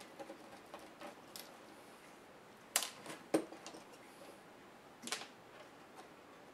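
Small clicks and light taps from hands working parts on a laptop's LCD back cover. Two sharp clicks come close together about three seconds in, and a third about five seconds in.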